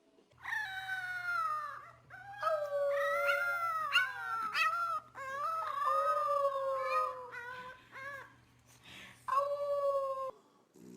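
A dog howling in a series of long, wavering calls that slide up and down in pitch, with a short final howl near the end. A low steady hum runs underneath and stops with the howls.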